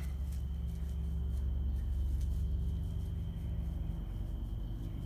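A steady low hum, a little louder in the middle, with a thin steady high whine above it.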